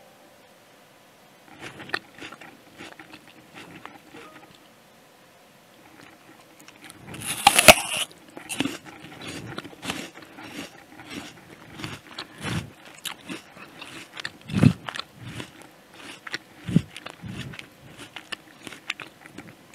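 Crisp Jazz apple being bitten and chewed close to the microphone: one loud crunching bite about seven seconds in, then steady crunchy chewing with irregular crackles and a few louder crunches.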